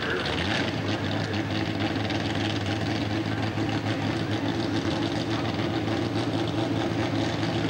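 Small pulling tractor's engine idling steadily, its even note settling in about half a second in.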